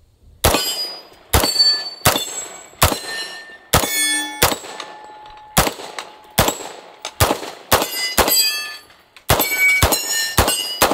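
CMMG Banshee carbine in 45 ACP fired unsuppressed through a linear compensator: about fifteen loud shots at an uneven pace, roughly one to two a second. Many shots are followed by the ringing clang of steel targets being hit.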